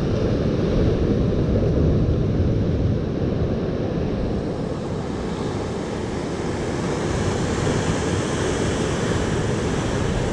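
Ocean surf washing over shoreline lava rocks, with wind rumbling on the microphone; a wash of surf hiss swells up in the second half.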